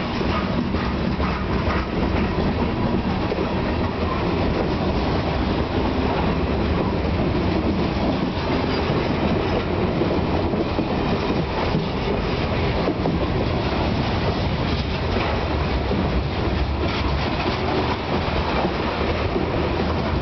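Norfolk Southern freight cars (gondolas, boxcars and covered hoppers) rolling past close by: a steady, loud noise of steel wheels running on the rails.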